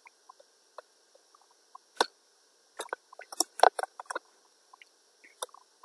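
Computer mouse and keyboard clicks: a single click about two seconds in, then a quick run of clicks, as files are selected and deleted.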